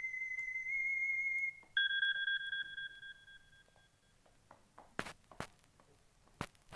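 Mobile phone ringtone ending on two electronic tones: a steady high note held for about two seconds, then a lower note that fades away over about two seconds. Three sharp clicks follow near the end.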